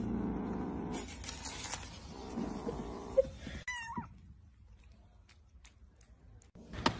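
Kitten giving one short, high mew that rises and falls, about three and a half seconds in, after soft noise from kittens eating dry kibble from a bowl.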